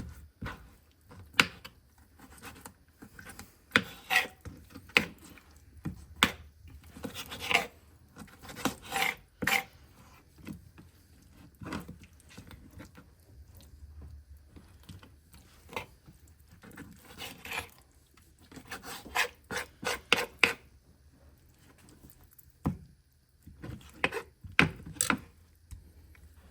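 Knife cutting through a raw chicken thigh on a cutting board: irregular scraping, sawing strokes, with a few sharp knocks of the blade on the board near the end.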